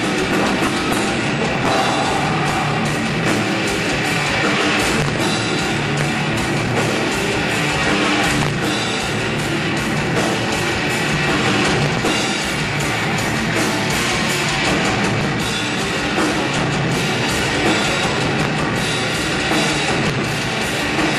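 Metal band playing loud live: electric guitar over a fast, busy drum kit.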